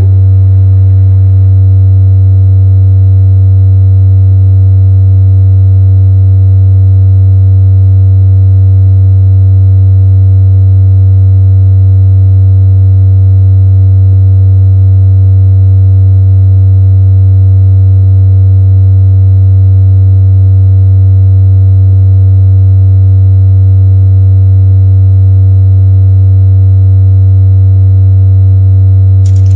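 Loud, steady low electronic drone tone holding one pitch, with faint higher overtones above it. Plucked instrumental music fades out under it in the first second or two, and a hissing noise starts right at the end.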